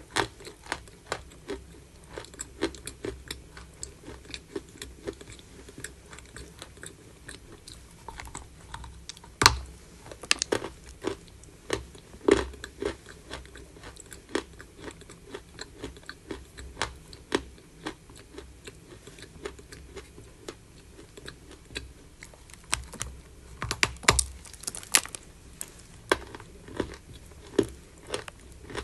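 Chalk being bitten and chewed close to the microphone: a dense, dry crunching and crackling, with a few sharp, louder bites, one about nine seconds in and a cluster around twenty-four seconds in.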